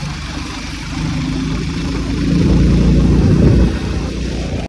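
A motor vehicle engine running, getting louder about two seconds in and easing off again near the end.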